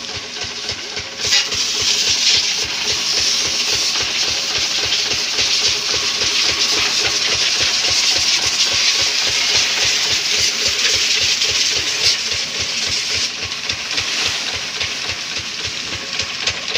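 High-pressure washer jet spraying water over a tractor's engine and chassis: a loud, steady hiss that strengthens about a second in and eases slightly near the end, with an engine running underneath.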